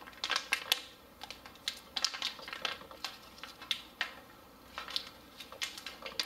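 MRE tortilla pouch being crinkled and torn open by hand: irregular crackles and short rips of stiff packaging as it resists tearing.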